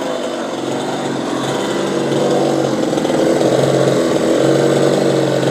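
Chainsaw engine running steadily at a held pitch, dipping briefly about four seconds in.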